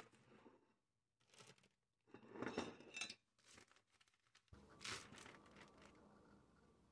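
Faint crinkling of a plastic Ziploc bag being handled and set down on the counter, in several short bursts, loudest about two to three seconds in.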